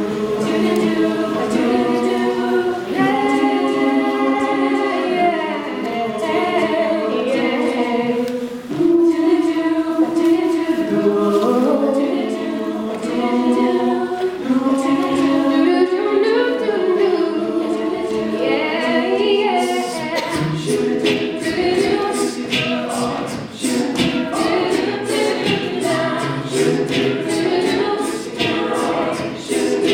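A cappella vocal group singing in harmony, several voices moving through chords with no instruments. A steady percussive beat comes in about two-thirds of the way through.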